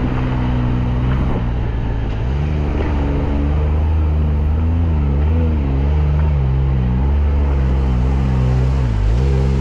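Can-Am Maverick R side-by-side's turbocharged three-cylinder engine running loud and close. Steady for about two seconds, then its pitch rises and dips repeatedly as the throttle is worked on and off.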